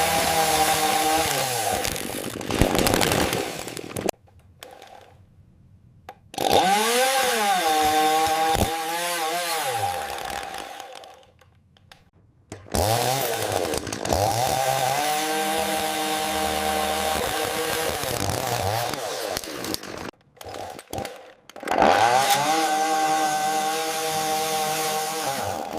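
AI-generated chainsaw sound: a chainsaw running at high revs in four bursts split by short pauses. In the second burst the pitch sags and then climbs back, as if the chain slows in the cut.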